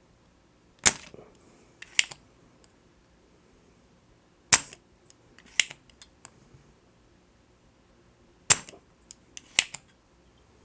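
Spring-loaded desoldering suction pump snapping as it is cocked and fired to pull molten solder off the controller joystick's solder joints. Six sharp snaps in three pairs, each pair about a second apart.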